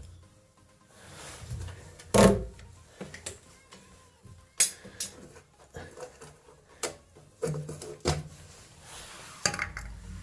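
Irregular knocks and clatter of hard objects being handled, about five sharper ones with quieter rubbing and shuffling between.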